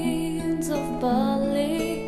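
A song performance: a voice singing held, wavering notes over a gentle instrumental accompaniment.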